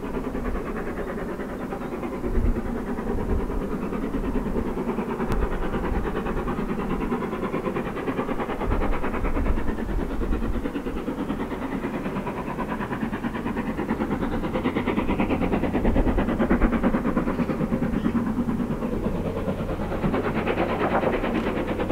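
Mainline steam locomotive and its train running along the rails: a steady, continuous noise throughout.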